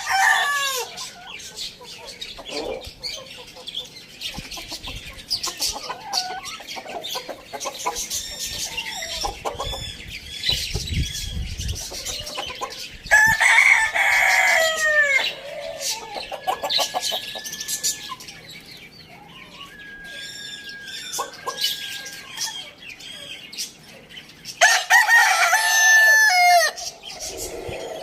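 Roosters crowing: two long crows of about two seconds each, one about halfway through and one near the end, with the tail of another at the very start. Quieter clucking and chirping fill the gaps between.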